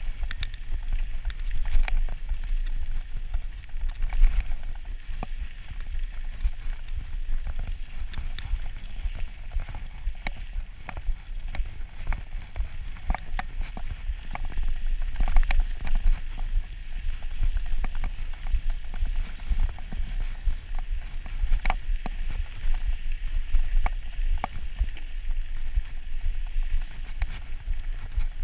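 Mountain bike running fast downhill on a rough dirt track: wind buffets the camera microphone in a steady low rumble, over a hiss of tyres on the dirt and frequent sharp clicks and rattles from the bike over bumps.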